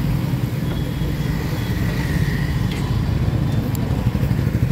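Engine idling close by with a steady low throb, over street traffic.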